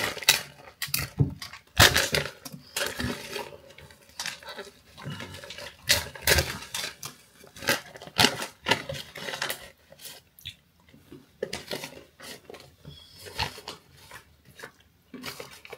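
Plastic snack bag being torn open and handled, with irregular crinkling and crackling throughout.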